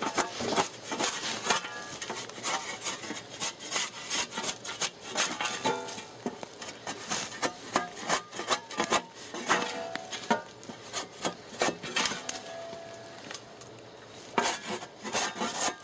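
Dry branches and fallen leaves rustling, cracking and scraping as poles and brushwood are handled and trodden on, in quick irregular scrapes with a few short squeaks.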